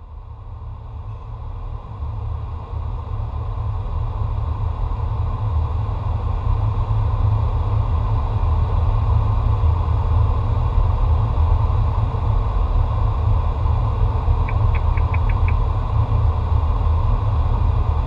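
Flight-deck noise of a Boeing 727 in low-level flight: a steady deep rumble of engines and airflow, fading in over the first few seconds. A quick run of five faint ticks comes a little past two-thirds of the way in.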